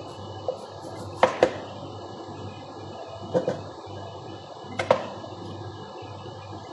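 A few sharp knocks over a steady background hum: two in quick succession about a second in, another quick pair past the middle, and a single louder one about five seconds in.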